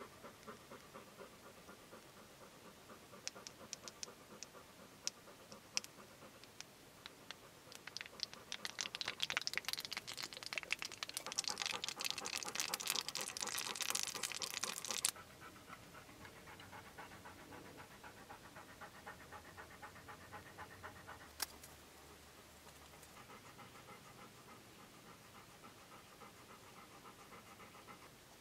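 Hot melted pine resin and birch oil crackling and sizzling in a small metal can over an alcohol burner while being stirred with a stick, beginning with scattered clicks and thickening into dense crackling. The crackling cuts off suddenly about halfway through, leaving only faint sound and a single click.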